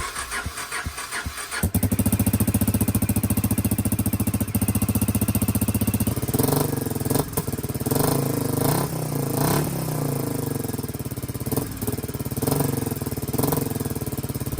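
Suzuki DR250 SHC single-cylinder four-stroke engine, exhausting through an aftermarket SuperTrapp muffler, turns over and catches about two seconds in and settles into a pulsing idle. From about six seconds in it is blipped on the throttle again and again, each rev rising and falling back.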